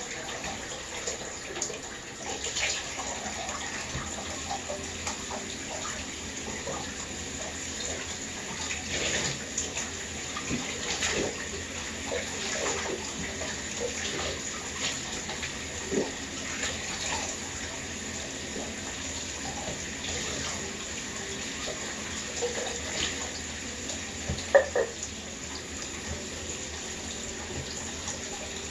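Water running and splashing in a bathtub as a small dog is washed, with scattered splashes and one louder sharp sound near the end.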